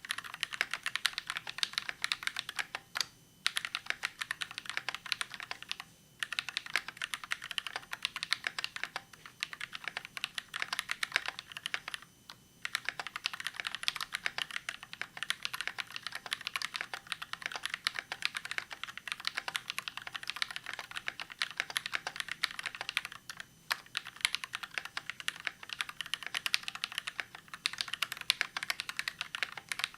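Fast continuous typing on a custom KBD67 mkii mechanical keyboard with a brass plate, Novelkeys Cream linear switches and PBT keycaps: a dense run of key clacks, broken by a few short pauses.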